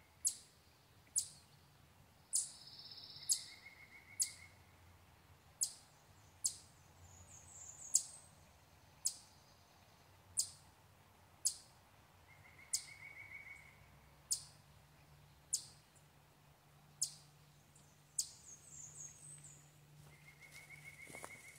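Birds calling: a sharp high note repeated about once a second, with a short buzzy trill every several seconds and snatches of other birdsong.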